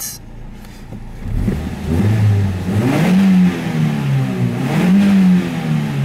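Car engine revved from idle while the vehicle stands still, heard from inside the cabin. The engine note climbs and falls back twice, running smoothly without knocking now that its intake manifold runner flaps have been removed.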